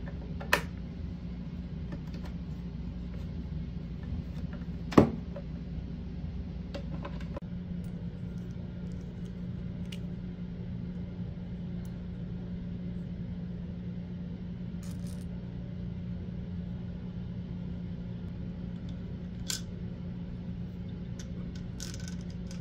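Sparse sharp clicks and taps of plastic and metal bidet-seat hardware being handled (the seat, its mounting plate, bolt and plastic anchors), over a steady low hum. The loudest click comes about five seconds in.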